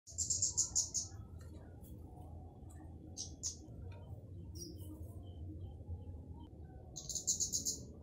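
Flowerpecker (burung cabai, kemade) singing: a quick run of high, thin notes, a few single notes a couple of seconds later, and another quick run near the end.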